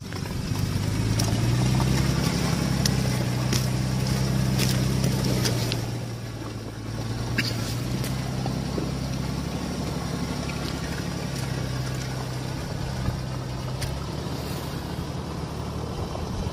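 Engine of a 4x4 off-road SUV running steadily as it crawls away through deep mud and puddles. It is louder for the first few seconds and then drops to a lower, steady level about six seconds in as the vehicle pulls away. A few light clicks are heard over it.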